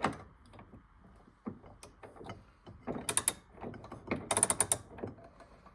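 A clamp being tightened down on a length of copper pipe, with two bursts of rapid ratcheting clicks, one about three seconds in and another just after four seconds, plus a few scattered clicks between.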